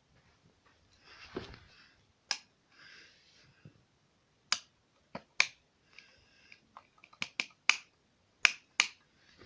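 About eight sharp, short clicks at irregular intervals, coming faster and louder in the last few seconds, with faint rustling noise between them.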